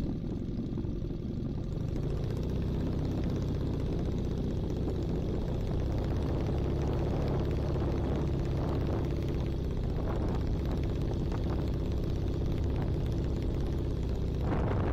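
Small Minimax 1100R ultralight engine, a Hummel half-VW, running steadily at low power with the propeller turning as the plane rolls onto the runway. A rush of noise swells near the end.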